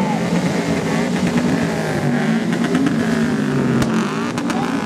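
Car engines held at high revs and revved up and down, loud and sustained, with a few sharp pops about four seconds in.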